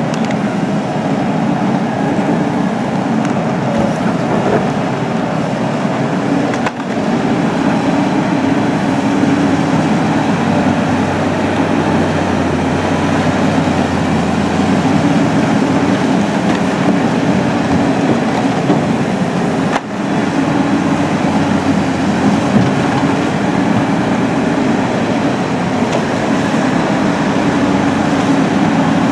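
Cat 320C tracked excavator's diesel engine running steadily while the boom and bucket work, a continuous heavy engine drone that briefly drops twice.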